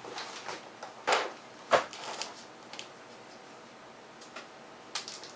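Objects being handled and set down: scattered clicks and knocks, the two loudest about a second and just under two seconds in, then a few lighter ticks.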